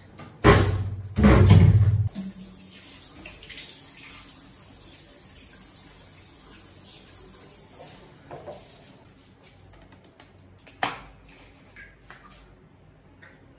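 Two loud thuds, then water running steadily from a tap for about six seconds before it stops; a sharp click comes near the end.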